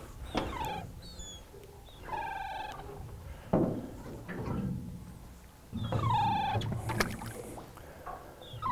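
Gulls calling near the boat: four drawn-out mewing calls, several sliding down in pitch, a couple of seconds apart. A single thump about three and a half seconds in.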